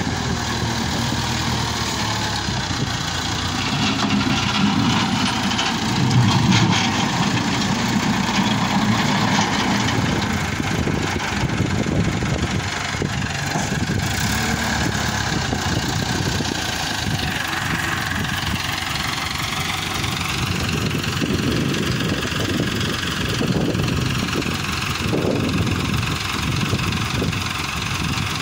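JCB backhoe loader's diesel engine running steadily while the machine works, swelling louder now and then in the first ten seconds.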